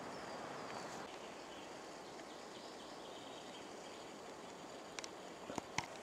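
Forest ambience: a steady hiss with faint distant birdsong, and a few sharp clicks close together near the end.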